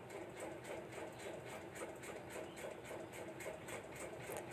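Steel spatula stirring and scraping frying dals and peanuts in an aluminium kadhai, a faint run of quick, even scraping strokes.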